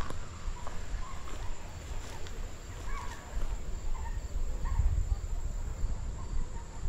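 Summer woodland ambience on a hiking trail: a steady high-pitched insect drone, a few short faint bird chirps, and a low rumble from walking and movement on the microphone.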